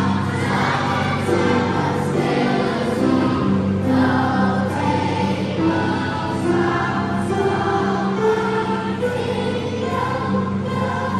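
Children's choir singing a song in unison with upright piano accompaniment, held notes moving steadily from one pitch to the next.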